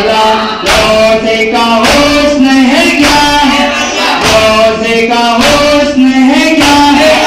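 A Shia noha (Muharram lament) sung by voices, a held, wavering melody over a steady beat of sharp strikes about twice a second.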